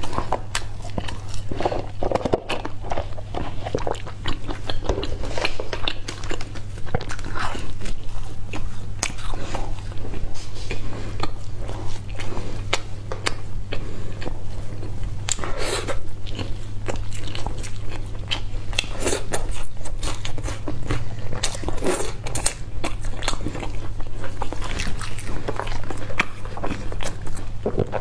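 Close-miked eating: chewing and crunchy bites of pizza crust and noodles, with many small wet mouth clicks. A steady low electrical hum runs underneath.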